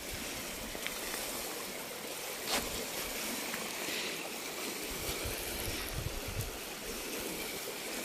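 Creek water running steadily over stones in a shallow, rocky channel, swollen with rainwater after heavy rain.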